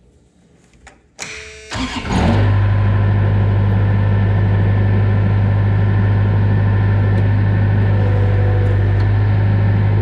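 Gehl 4625 skid steer's engine starting about two seconds in after a brief click, then running steadily.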